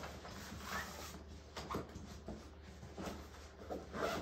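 A fabric carry bag being handled and zipped: irregular short rustles and scrapes of cloth, the loudest near the end.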